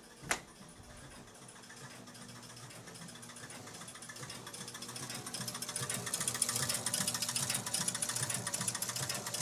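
Electromechanical pinball machine's score motor running without stopping, its cam switches and relays clattering in a fast, even rhythm that grows louder from about four seconds in. The machine is stuck in a cycle and will not finish resetting. A single sharp click sounds just after the start.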